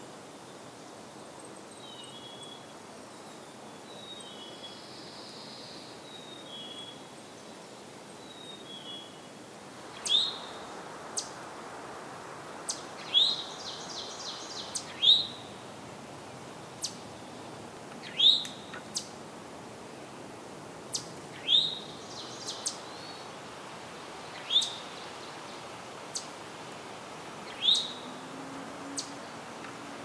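Eastern towhee calling close by: a loud, rising call note repeated every two to three seconds, with two brief buzzy trills in between. For roughly the first third, before the towhee starts, a fainter bird gives short, falling high notes about every second and a half.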